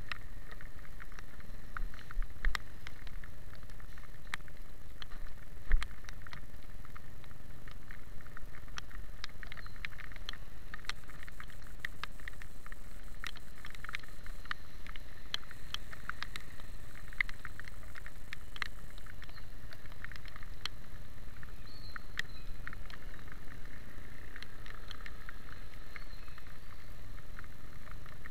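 Motorcycle riding on a wet road in the rain: a steady low rumble of engine and tyres, with many small sharp ticks of raindrops striking the camera. Two low thumps come about two and a half and six seconds in.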